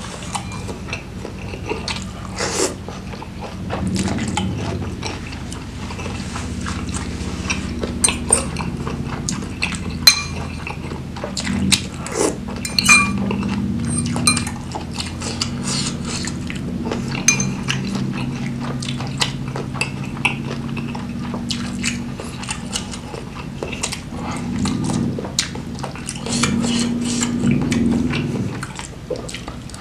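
Metal fork and spoon clinking and scraping against ceramic bowls of meatball soup, in sharp irregular clicks, over close-miked chewing of a mouthful of meatballs and noodles.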